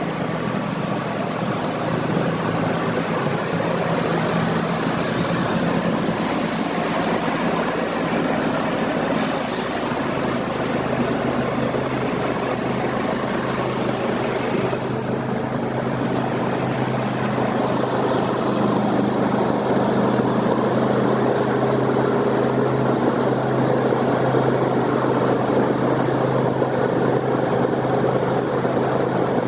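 Sawmill engine running steadily at a constant speed, a continuous mechanical drone.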